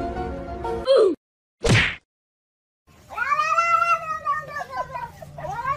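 Cat meowing: a short meow about a second in, then a long, drawn-out meow that rises and falls after a brief pause, with another starting near the end. Steady musical tones fill the first second.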